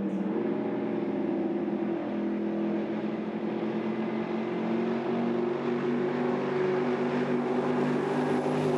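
Twin Mercury Racing 1550/1350 engines of a Fountain 47 Lightning powerboat running hard at speed: a steady, multi-toned engine drone over a broad rushing noise, getting a little louder about halfway through.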